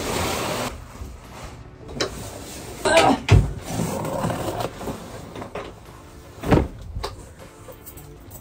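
Household handling noises: a plastic bag of clothes rustling as it is dragged, then a cardboard box being opened and moved, with scattered knocks and two dull thumps about three seconds apart.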